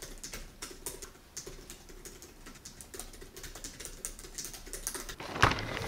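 Typing on a computer keyboard: irregular quick key clicks, with one louder knock about five seconds in.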